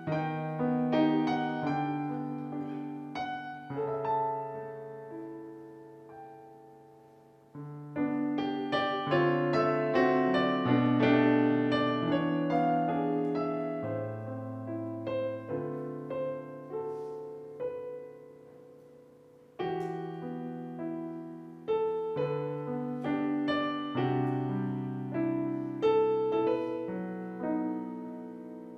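Solo piano playing slow, gentle phrases of chords and melody. Each phrase dies away, about 7 and about 19 seconds in, before the next one starts.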